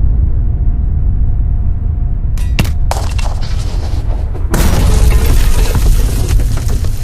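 Designed artillery explosion sound effects over a continuous deep rumble: a sharp crack about two and a half seconds in, a short burst of crackling debris, then a louder blast with a wash of shattering debris from about four and a half seconds on.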